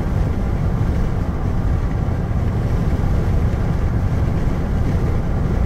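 Steady low rumble of engine and tyre road noise, heard from inside the cab of a vehicle driving along a highway.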